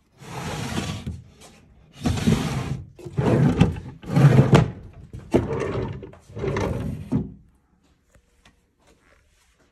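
Wooden drawers being slid open and pushed shut, six sliding strokes each under a second long, wood rubbing on wood.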